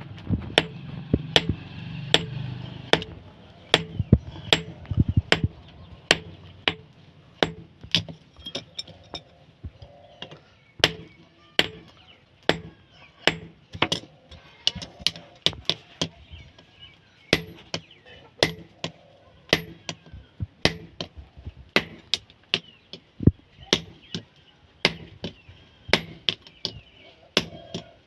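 Hammer striking steel in a long, steady series of sharp ringing blows, roughly two a second, typical of hammering a chisel blade into shape.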